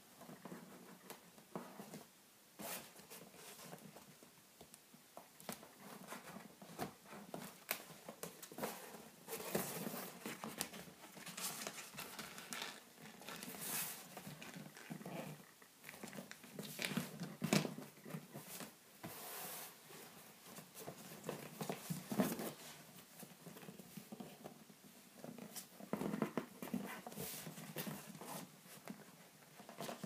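Paper rustling and creasing in irregular bursts as a printed paper cut-out is folded into a miniature microwave by hand, with fingers pressing and sliding against a cardboard box surface.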